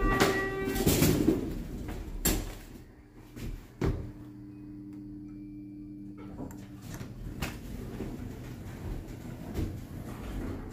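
Passenger elevator: the sliding doors moving, with a couple of knocks in the first few seconds, then a steady low hum for about two seconds midway and the quieter running noise of the car.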